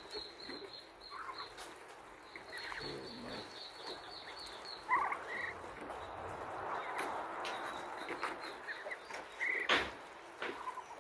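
A mixed flock of ducks, geese and turkeys feeding together from a box of overripe bananas, with scattered short, high calls. A single sharp knock comes near the end.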